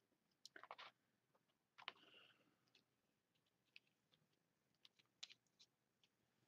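Near silence, with a few faint clicks and brief rustles of hands handling painting supplies at a paint palette.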